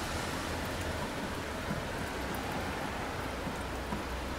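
Steady rain falling on city pavement, an even hiss with a low rumble underneath.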